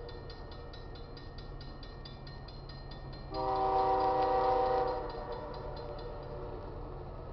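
Railroad crossing bell ringing in quick, even strokes while the gate arm lowers, fading out near the end. About three seconds in, the approaching GE ES44AC diesel locomotive sounds its horn, a chord held for about a second and a half.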